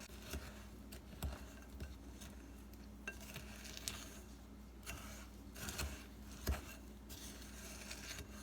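Faint kitchen handling: a metal spoon tapping and scraping in a glass mixing bowl, with scattered light clinks.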